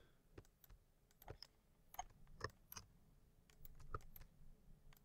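Faint computer mouse and keyboard clicks, about eight sharp ticks at irregular intervals.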